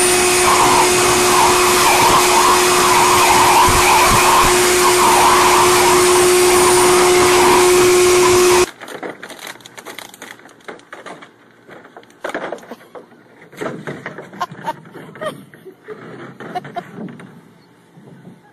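An electric blower runs loud and steady at close range, blowing air into a dog's face, with a fixed whine under a rushing noise. It cuts off abruptly about eight and a half seconds in. After that come quieter scattered taps, knocks and light splashes as a puppy plays in a plastic wading pool.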